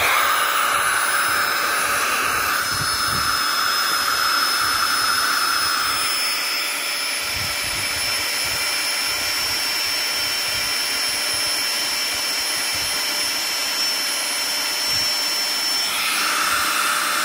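Flextail Gear Max Pump 2 Pro battery air pump running steadily, a high whine over rushing air, as it blows up an inflatable sleeping mat through the mat's valve.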